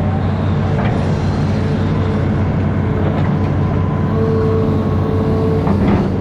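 Amphibious excavator's diesel engine running steadily, with a steady higher whine over it and brief squeaks about a second in and near the end.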